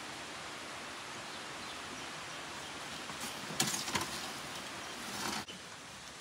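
A steady, even hiss of noise, with a few knocks and clatters from about three and a half seconds in. The hiss cuts off suddenly about five and a half seconds in.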